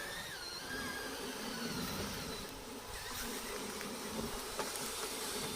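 Whine of a radio-controlled bulldozer model's small electric motors, a thin buzzing pitch that wavers up and down as the model works, over a steady hiss, with a small click near the end.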